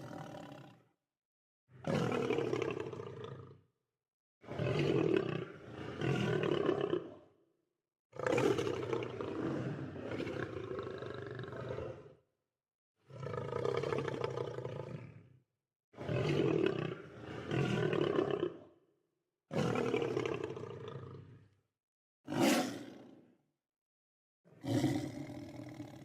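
Lion roaring in a run of separate calls, each about one and a half to four seconds long, with short gaps of dead silence between them, as if spliced together from recordings.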